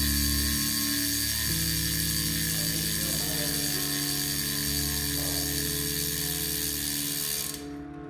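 A road bike's rear freehub ratcheting in a fast, continuous buzz as the cassette spins freely, dying away about seven and a half seconds in. Background music plays underneath.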